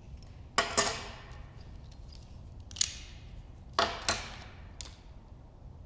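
Small metal blow-gun parts (nozzle and extension tube) clinking and knocking together as they are handled and fitted: about six sharp clicks with short ringing tails, some in quick pairs.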